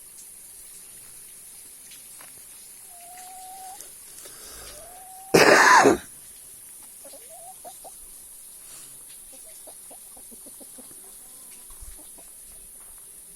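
Chickens: a loud, harsh squawk lasting about half a second near the middle, amid soft chirps before it and a run of short low clucks after.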